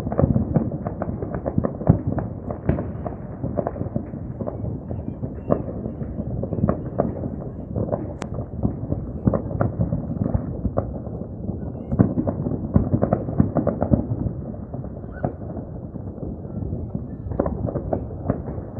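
Many fireworks going off at once in all directions: a dense, continual barrage of bangs and pops, muffled by distance, from about thirty shows around the lake. Several louder booms stand out, around two seconds in and again around twelve seconds in.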